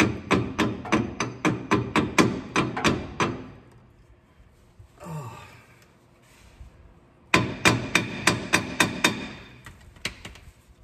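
Hammer tapping the universal-joint caps into place on a drive shaft, in quick light strikes about four to five a second. There are two runs of strikes with a pause of about four seconds between them.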